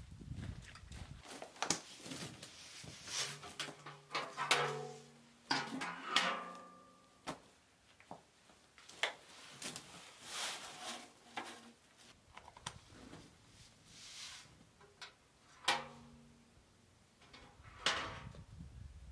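Galvanized metal buckets knocking and clanking as they are handled and set down, with ringing metallic tones twice. Loose dirt hisses as it is poured out of a bucket onto a canvas tarp, and sand scrapes as it is scooped up with a bucket.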